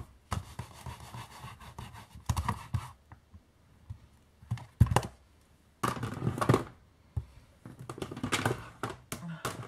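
Irregular clicks, knocks and short scraping rubs of stamping supplies being handled and set down on a craft desk while cleaning up after stamping, with a sharp knock about halfway through.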